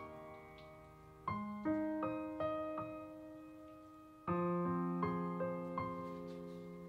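Background music: slow solo piano, its notes ringing and fading away, with new chords struck about a second in and again past the four-second mark.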